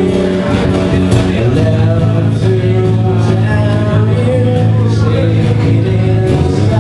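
Live band playing a song: a singer's voice over acoustic guitar and bass guitar.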